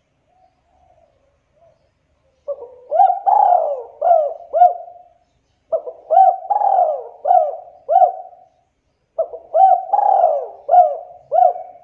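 Spotted dove cooing: three phrases, each a run of several quick arched coos, after a faint short note near the start.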